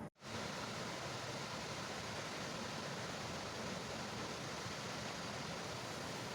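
Waterfall crashing down, a steady, even rushing hiss of falling water, after a momentary dropout at the very start.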